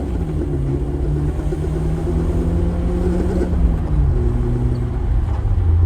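Car engine running under way with its revs falling slowly and steadily, the engine note dropping in pitch after a hard run.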